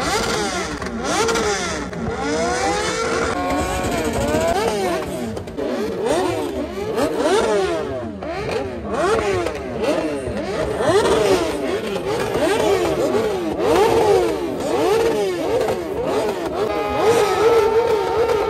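Several motorcycle engines revving over one another, their pitch climbing and dropping again and again, with one steady engine note held underneath.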